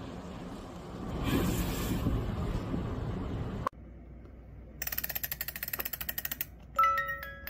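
Street traffic and wind noise that cuts off abruptly about three and a half seconds in. Then a wind-up music box's mechanism clicks rapidly and evenly, and near the end its comb starts plucking out a tune, each note ringing on.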